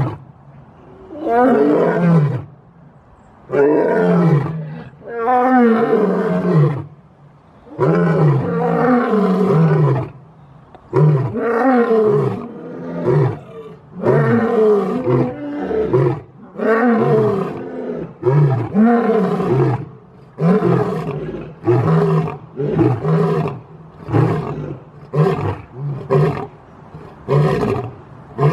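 Lion roaring in a bout: long roars, each falling in pitch, that give way in the second half to shorter, quicker grunts about one a second.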